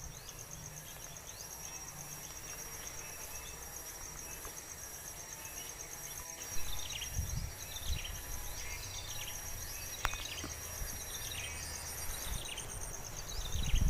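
Steady, high, pulsing trill of insects. From about halfway through, short downward-sliding bird chirps join in, roughly one a second.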